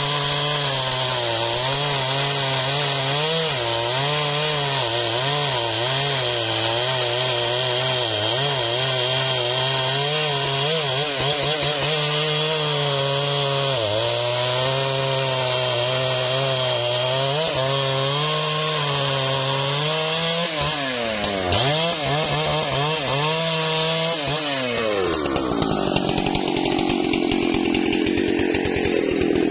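Large Stihl chainsaw at full throttle, cutting through a thick trembesi log, its engine note wavering as it bogs and recovers under load. About twenty seconds in the engine drops off with a falling pitch and is blipped, and a rougher, different saw sound follows near the end.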